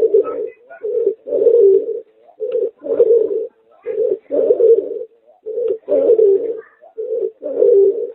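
Pigeon × puter dove hybrid (merpater) cooing: a short coo followed by a longer coo, the pair repeated about every one and a half seconds, six times.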